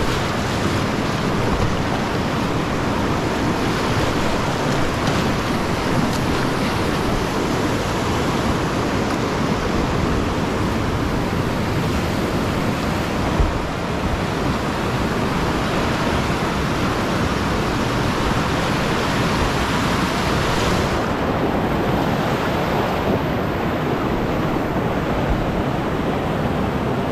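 Whitewater rushing loudly and steadily around a kayak running a rocky river rapid, with one brief knock about halfway through.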